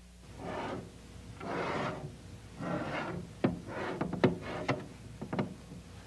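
A microwave-safe baking dish scraped across the floor of a microwave oven in four short rubbing pushes as it is given a half turn, then about six sharp clicks and knocks in the second half.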